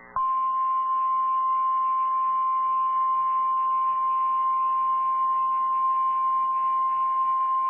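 NOAA Weather Radio 1050 Hz warning alarm tone: one loud, unbroken, steady tone that comes on just after the start, over faint radio hiss. It is the signal that a warning message follows.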